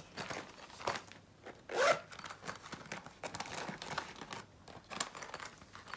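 Desk-side handling noises while a pen is fetched for drawing outlines: a string of short rasping scrapes and rustles, the loudest about two seconds in.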